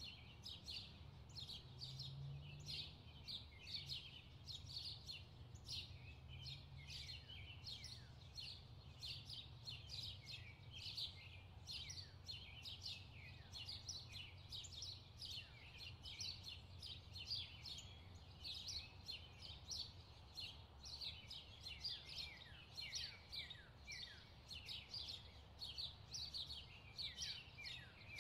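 Birds chirping faintly and without pause: many short chirps that fall in pitch, several a second, over a steady low hum.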